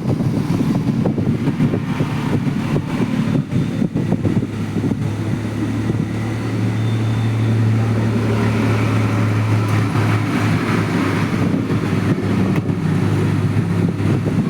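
Ceiling fan winding energised for a magnetic field test, giving a low steady electrical hum over a constant noisy hiss. The hum grows louder about four seconds in and eases back about ten seconds in.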